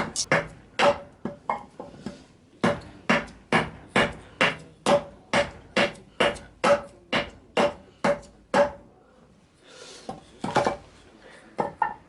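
A hand tool striking a block of wild cherry wood again and again while carving a kuksa, about two sharp knocks a second, each with a short ring. The strikes stop about three quarters of the way in, and a few lighter knocks follow near the end.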